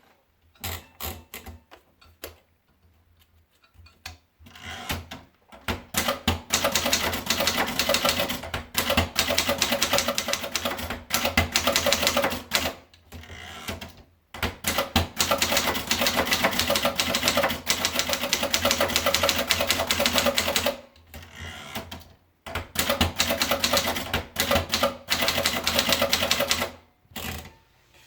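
Remington Rand Sperry Envoy III typewriter being typed on: a few separate key strikes at first, then long runs of rapid keystrikes, broken by two short pauses around the middle and about three quarters of the way through.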